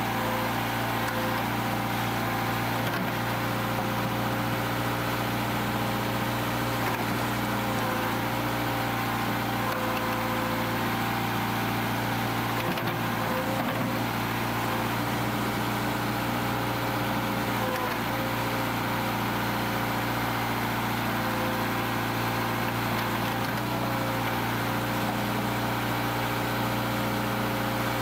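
Excavator engine running steadily at an even pitch while its bucket digs a trench in turf.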